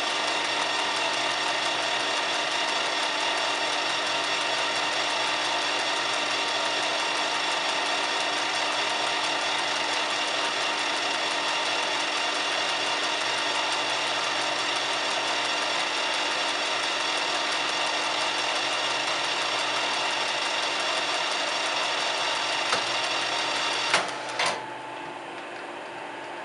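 Gamet metal lathe running with a steady whine of many even tones as the boring tool takes a light finishing cut in a connecting rod's white-metal big-end bearing, the finish coming out without chatter. About 24 seconds in there are a couple of sharp clicks and the lathe is switched off, leaving a fainter steady hum.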